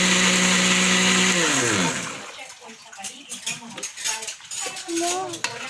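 Electric kitchen blender running at a steady speed, then switched off: the motor winds down, falling in pitch, and stops about two seconds in. It is followed by light clicks and clinks.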